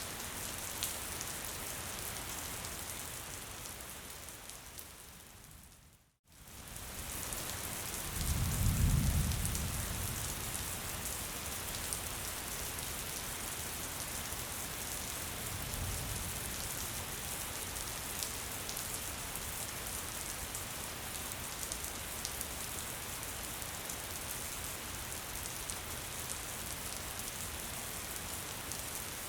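Gentle rain falling steadily, with faint patter of separate drops. About six seconds in it fades briefly to silence and comes back. Soon after, a low rumble swells for about two seconds, and a fainter one follows some seconds later.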